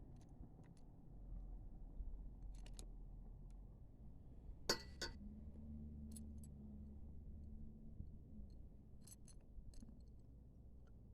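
Faint clicks and small metal clinks of hand-work on a mini bike's twist throttle and cable, with one sharper clink about five seconds in. A low steady hum runs underneath from about five to eight seconds in.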